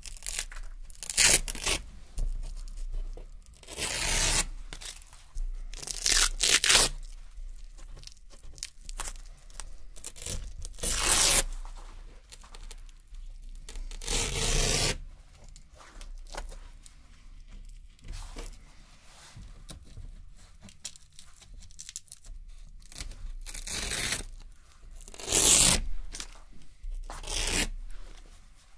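Small strips of hook-and-loop (Velcro) fastener being peeled off a hook-and-loop board one at a time: a series of crisp rips, some short and some about a second long, with quiet gaps between them.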